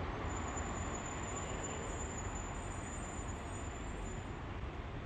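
Distant tram approaching along a street track: a steady low rumble with a thin high whine that comes in just after the start and fades out about four and a half seconds in.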